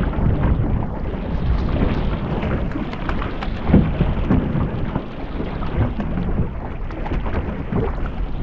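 Wind buffeting the microphone with a low, uneven rumble, mixed with waves slapping against the hull of a small boat on open sea.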